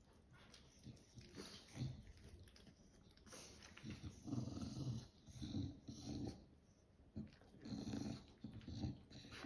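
English bulldog grumbling with low growls and snuffly breaths as a pug puppy paws at its face. It is fairly quiet for the first three seconds, then the short low grumbles come about once a second.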